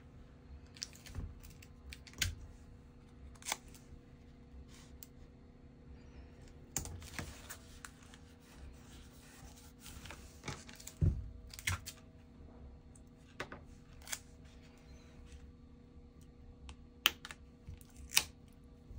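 Scattered small clicks, taps and paper rustles as hands handle kraft cardstock and press clear tape down over a metal brad. There is a short scratchy rustle about seven seconds in, a dull thump about eleven seconds in and two sharper clicks near the end, over a faint steady hum.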